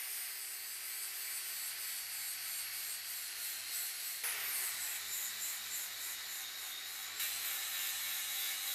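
Angle grinder grinding metal: a steady hissing grind with a faint whine, shifting in character about four seconds in and again near the end.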